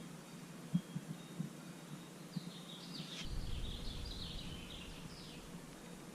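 A few light knocks about a second in, then a bird chirping faintly in a quick run of short high notes for about three seconds, over a low rumble.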